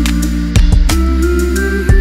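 Background music: held instrumental notes with drum hits.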